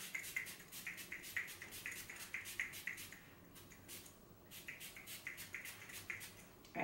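Tatcha Luminous Dewy Skin Mist pump spray bottle misting the face: rapid short hissing sprays, about four a second, with a pause of over a second midway before the spraying resumes.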